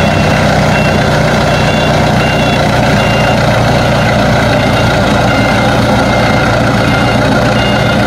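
Airport aircraft tow tractor's engine running steadily as it moves a turboprop airliner, with a short high warning beep repeating about every three-quarters of a second.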